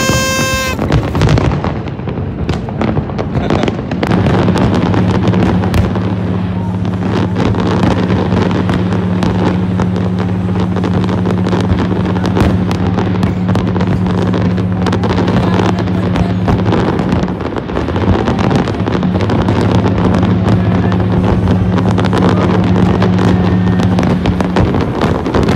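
A paper party blower gives a short toot at the start. Then a big fireworks display bangs and crackles without pause. From about four seconds in, deep ship's horns sound one long steady blast under the fireworks, break off briefly, then sound again until near the end.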